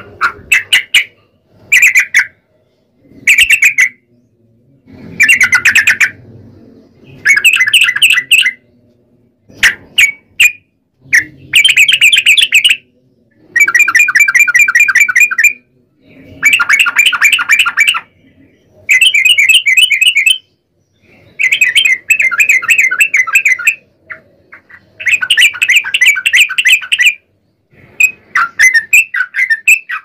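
Yellow-vented bulbul (trucukan) singing in its long rolling 'ropel' song: a dozen or so rapid, bubbly warbled phrases of one to two seconds each, separated by short pauses, breaking into single chirps near the end.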